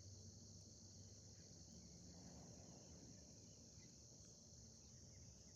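Faint steady chorus of crickets, a continuous high-pitched trill; otherwise near silence.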